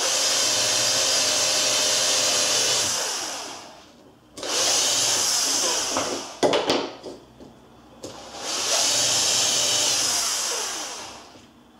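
Electric drill boring an oversized nail hole about halfway into MDF picture rail moulding, run three times for a few seconds each, each run winding down as the trigger is let go. A few sharp clicks about six and a half seconds in, between the second and third runs.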